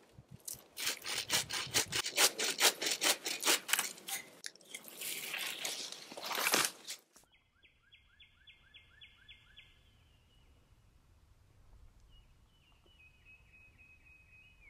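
Homemade bow saw, a steel blade on a bent green-wood frame, cutting through dead wood in quick repeated strokes. The sawing stops abruptly about seven seconds in, and faint chirping trills follow.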